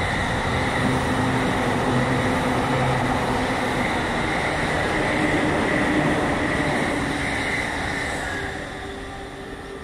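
Electric train running past on the tracks, a steady rumble with a high whine, fading away near the end.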